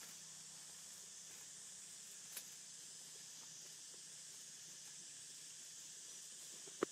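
Faint steady high-pitched hiss of outdoor background, with a light click about two and a half seconds in and a sharper click near the end.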